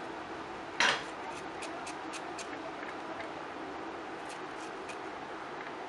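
A knife cutting raw nendran plantain peel into small pieces by hand, making a scatter of light, sharp clicks, with one short, louder scrape about a second in.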